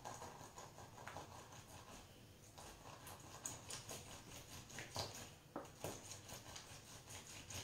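Faint, scattered small clicks and light knocks of kitchen utensils and containers being handled at the counter.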